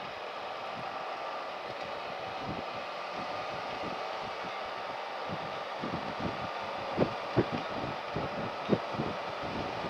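Motorcycle riding at road speed: steady engine and wind noise, with short low thumps that come more often in the second half, the loudest about seven seconds in.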